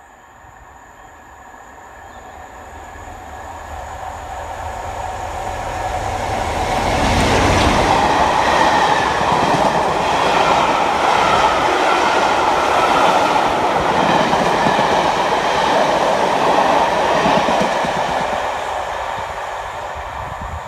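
A locomotive-hauled passenger train passes close by without stopping. Its noise builds over about seven seconds, stays loud for about ten, then fades as it runs away into the distance.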